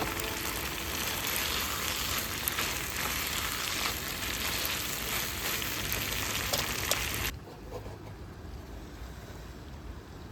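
Food sizzling in a hot pan, a steady crackle with small pops, cutting off abruptly about seven seconds in to a quieter hiss.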